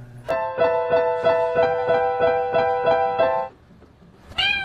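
Keyboard instrument playing a held chord that is restruck about three times a second for about three seconds, then stops. Near the end a cat starts to meow.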